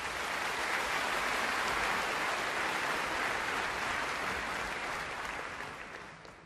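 Large audience applauding, a steady dense clatter of clapping that fades away near the end.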